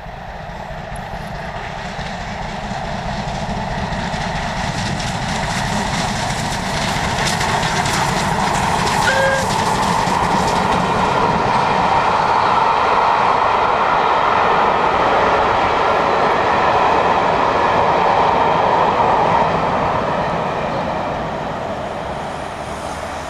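Steam-hauled express passing: 35028 Clan Line, a Bulleid Merchant Navy class Pacific, grows louder as it approaches and goes by. Then the Pullman coaches roll past with wheels clattering over the rail joints, fading near the end as the train draws away.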